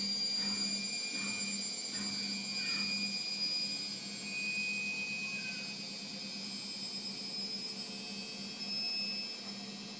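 Indesit washing machine spinning at 600 rpm: a steady high motor whine over a low hum that pulses about twice a second.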